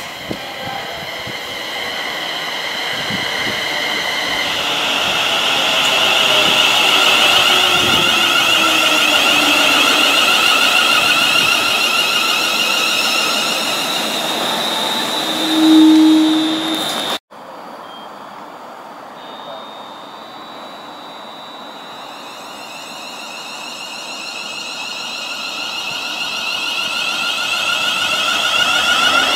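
Siemens Desiro Class 350 electric multiple unit running into the platform, its traction motors whining in several high steady tones, with a lower tone gliding down as it slows. A brief low tone is the loudest moment, about sixteen seconds in. After an abrupt cut, another Class 350 unit's motor whine grows louder toward the end.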